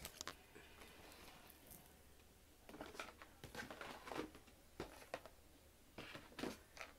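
Mostly quiet, with faint scattered clicks and rustles starting about three seconds in.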